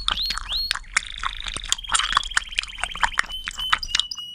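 Puppy making high-pitched yelps that rise in pitch, about three a second, then about a second in a faster run of squeaky cries.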